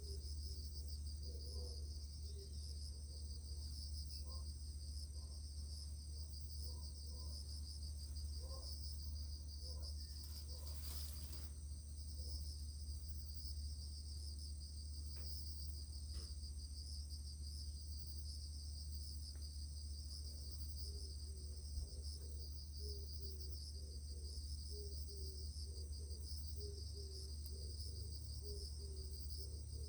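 Steady chorus of crickets, a continuous high-pitched pulsing trill, over a steady low hum. There is a brief burst of noise about eleven seconds in.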